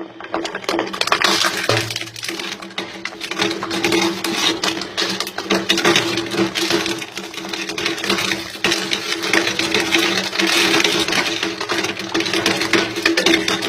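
A crushing machine running with a steady motor hum while the object being crushed crackles and snaps continuously, starting about a second in.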